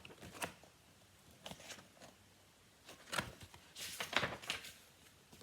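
Faint rustles and soft taps of a paper picture book being handled as a page is turned, in a few short strokes, the loudest about three to four and a half seconds in.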